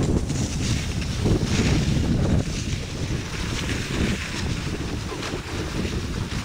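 Wind buffeting the camera's microphone during a fast ski descent, with the hiss and scrape of skis on packed, groomed snow swelling and easing through the turns.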